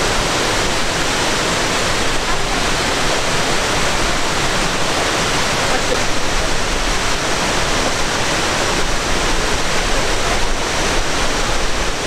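Multi-tiered waterfall cascading over limestone ledges: a steady rush of falling water.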